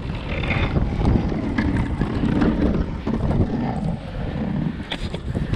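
Wind buffeting the microphone, with the engine of a pickup-mounted snowplow truck driving past close by.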